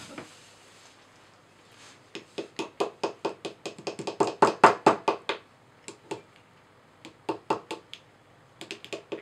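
Small hammer tapping quickly at a plaster dig block from a dinosaur excavation kit, chipping it away around a pick. The taps come in runs of about six a second, with a pause in the middle, a few taps, and a fresh run near the end.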